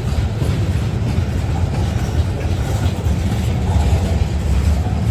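Heavily loaded freight cars carrying steel coils rolling slowly past on the rails: a steady, deep rumble of steel wheels on track.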